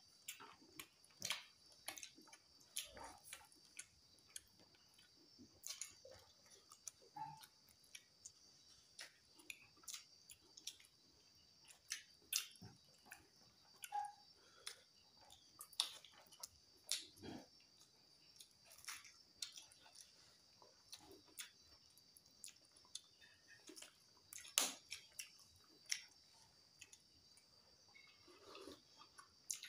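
Close-up eating sounds of rice and chicken eaten by hand: irregular wet smacks and clicks of chewing and of fingers mixing food on the plate. A faint steady high-pitched tone runs underneath.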